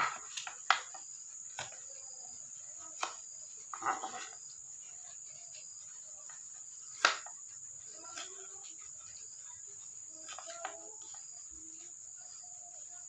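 A kitchen knife cutting tomatoes on a wooden cutting board: a handful of sharp knocks at irregular intervals, the loudest about seven seconds in. A steady high-pitched insect trill runs underneath.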